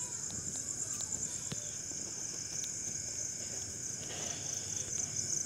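Steady, high-pitched, rapidly pulsing trill in the background, with a few faint clicks.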